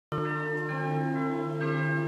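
Music starting abruptly: sustained chords of many steady tones that change every half second or so, with no clear beat.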